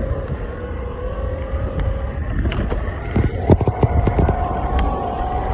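Electric skateboard riding: low rumble of the wheels on the ground and wind on the microphone, under a steady electric motor whine that steps up in pitch about three seconds in and keeps rising slightly. A cluster of sharp knocks comes around the middle.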